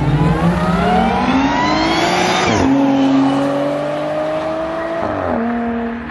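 Car accelerating hard. The engine note starts suddenly and rises steeply for about two and a half seconds, drops sharply at an upshift, climbs again more slowly, and drops at a second upshift near the end.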